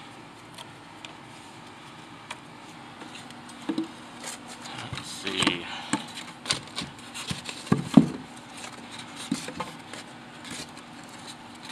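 Wooden boards and blocks knocking and scraping against each other as they are shifted by hand. The knocks are scattered and irregular, loudest around eight seconds in.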